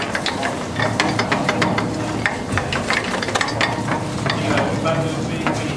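Mill drill with an indexable-insert face mill cutting aluminium: a steady motor hum under a continuous, irregular crackle of the inserts biting and chips flying.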